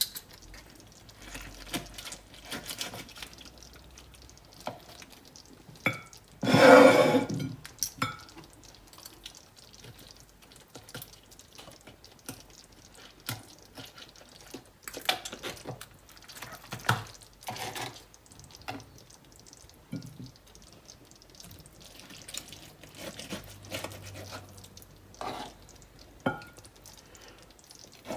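Knife and fork carving a roast chicken on a plastic cutting board: scattered clicks and scrapes of the cutlery against the bird and the board. About six seconds in comes a louder noisy sound that lasts about a second.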